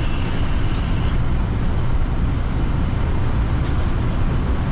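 Steady low rumble of airflow and engine noise on a Boeing 787-10 flight deck in flight.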